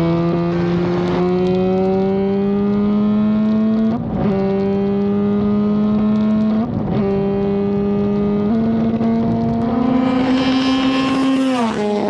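Norton RCW588 twin-rotor Wankel rotary engine at full throttle, heard onboard, revs climbing as it pulls up through the gears with quick upshifts about four and six and a half seconds in. Near the end the revs drop as the throttle closes.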